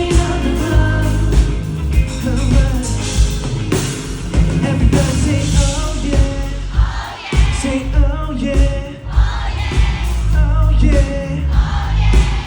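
Live band playing a pop-rock song with a male singer's vocals over a steady drum beat.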